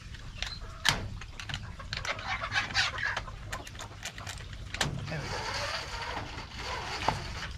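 Padlock and metal hasp on a wire-mesh chicken coop door clicking sharply as the door is fastened shut, the loudest click about a second in and another near the end. Hens cluck and murmur inside the coop.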